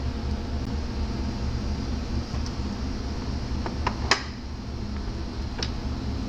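Short sharp metallic clicks and clinks of hand tools and rocker-arm parts being handled on an Isuzu truck engine: a quick cluster about four seconds in, the last the loudest, and one more near the end. A steady low hum runs underneath.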